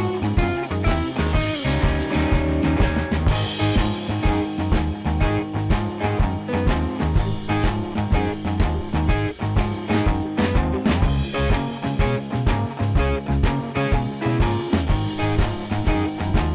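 Background music: an upbeat guitar-led track with a steady beat.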